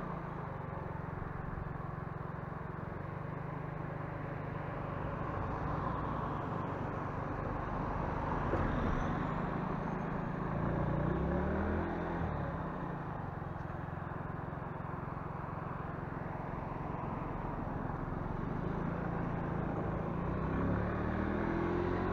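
Motorcycle engine running while riding slowly, its pitch rising and falling as the throttle changes, over a steady rush of wind and road noise.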